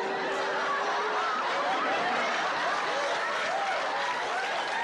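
Studio audience laughing and hooting, with many short rising and falling calls over a steady wash of crowd noise and one held voice note in the first second or so.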